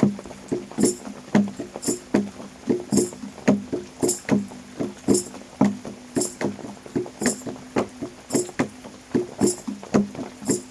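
Stringed instrument plucked in a quick, steady rhythm over a held low note, with a crisp high percussive tick about twice a second.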